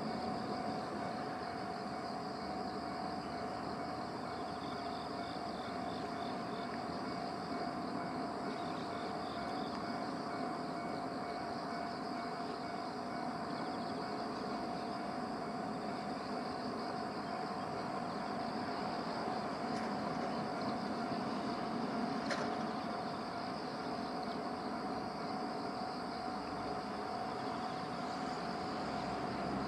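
Japanese railway level-crossing alarm ringing steadily over outdoor background noise, signalling that a train is approaching.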